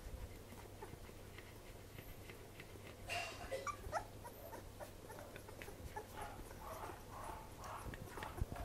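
Newborn Pembroke Welsh corgi puppies nursing, with faint suckling clicks and small high squeaks and whimpers: a louder rising squeak about three seconds in, and a run of short soft squeaks in the last few seconds.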